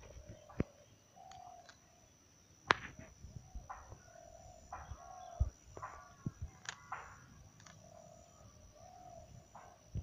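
Birds calling on and off in short repeated calls, with several sharp clicks and a faint steady high whine underneath.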